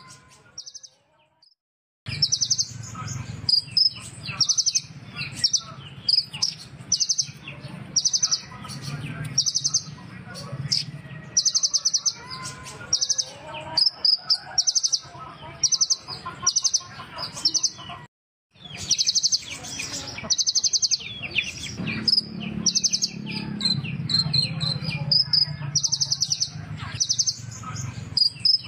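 A kolibri ninja sunbird singing: a rapid stream of high, buzzy trills and sharp chirps repeated about once a second, broken by two short gaps, over a low steady hum.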